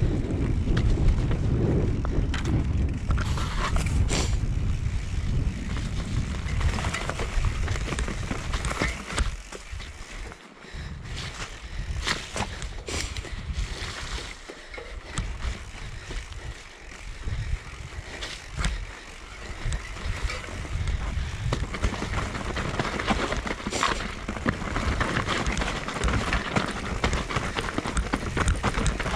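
Mountain bike riding down a rough downhill trail: tyres rolling over grass, dirt and stones, with frequent short knocks and rattles as the bike hits bumps. Wind on the microphone is heaviest for the first nine seconds or so.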